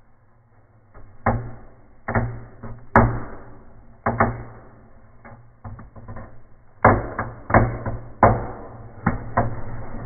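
Fire in a fireplace crackling with sharp, irregular pops, about a dozen of them, coming in two clusters, one starting about a second in and one after a lull in the middle.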